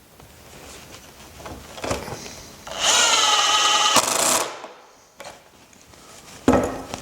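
Power drill driving a pocket-hole screw into a cabinet face frame joint: the motor whines for about a second and a half, rising slightly as it spins up, then stops. A sharp knock comes near the end.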